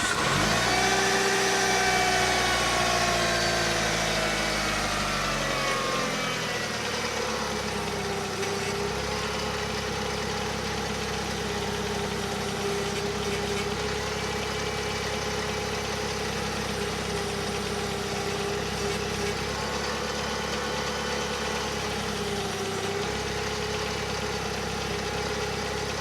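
Car engine running just after a start: the fast idle drops over the first six seconds and then settles into a steady idle.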